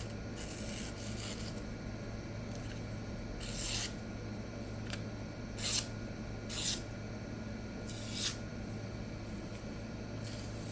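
Four short, hissing swishes of a freshly sharpened chef knife's blade, the strokes spaced a second or two apart, over a steady low hum.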